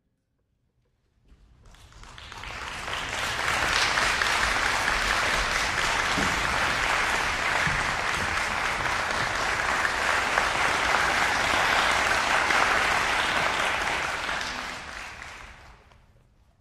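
Audience applauding the conductor's entrance. The applause builds over the first few seconds, holds steady, then dies away near the end.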